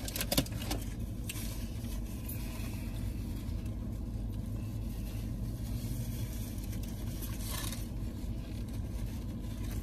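Steady low hum inside a parked car's cabin, with quiet eating and handling of foil and paper sandwich wrappers, including a short crinkle about three-quarters of the way through.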